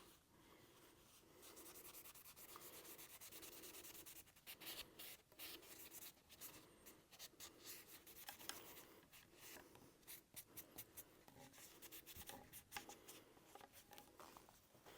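Faint rubbing of an oily cloth over the metal of a rifle's receiver and trapdoor: a steady stretch of scrubbing, then shorter strokes with small ticks here and there.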